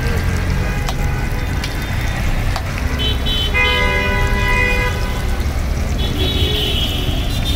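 Oil sizzling as rolls deep-fry in a wok, over a steady low traffic rumble; a vehicle horn sounds for about a second and a half around the middle.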